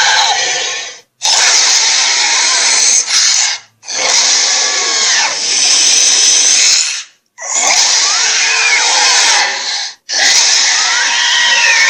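A series of dragon roar sound effects, each a loud, rough roar about two to three seconds long with pitch sweeping up and down, cut off abruptly and followed by a short gap before the next one starts.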